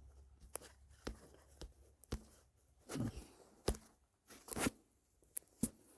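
Scattered light clicks and knocks of hands and tools working on car engine parts.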